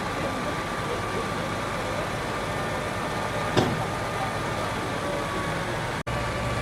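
Heavy engine running steadily at a demolition site, with a single sharp knock about three and a half seconds in. The sound cuts out for an instant near the end.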